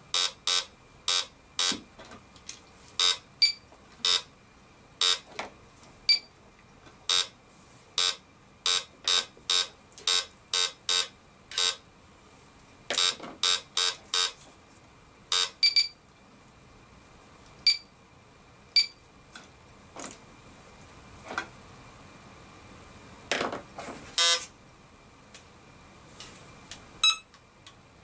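Discovery 2200 metal detector with its search coil connected, giving short electronic beeps at irregular intervals, often one or two a second at first and fewer later, with a few lower, longer tones in the last third. These are false signals, which the owner puts down to radio interference in his lab.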